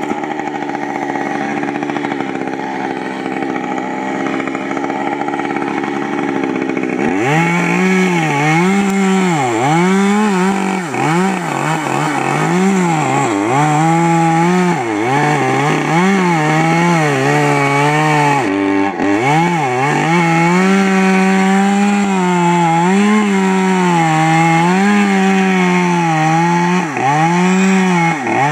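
Two-stroke chainsaw running at a steady speed, then from about seven seconds in cutting through a standing tree trunk. Its engine speed dips and recovers over and over as the chain bites into the wood.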